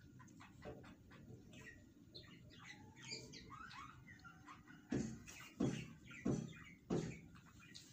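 Faint, high bird-like chirps and squeaks, with four sharp knocks about two-thirds of a second apart in the second half.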